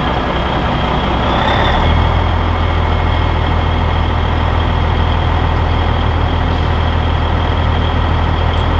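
Caterpillar 3406B diesel in a Peterbilt 362 cabover idling steadily soon after starting, its low drone growing stronger about two seconds in and then holding even, while the truck builds air pressure.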